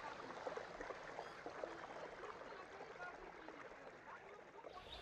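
Faint lapping water with scattered faint short chirps.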